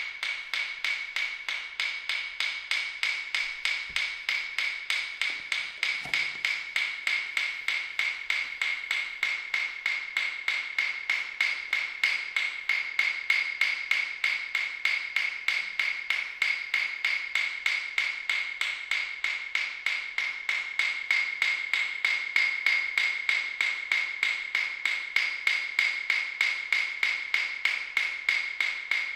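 A steady rhythmic ticking pulse, several beats a second, over a constant high ringing tone, unchanging throughout.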